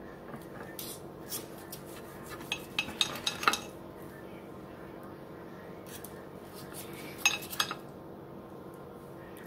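Metal fork clinking and scraping against a ceramic plate as it cuts through a cooked chicken breast. It comes in short clusters of clicks: a few about a second in, a denser run around three seconds, and another brief run past seven seconds.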